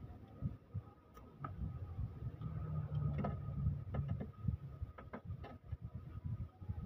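Scattered sharp metallic clicks and clinks of a wrench being worked on the bolts of a cylinder head during teardown, several close together in the second half, over a low rumble in the middle.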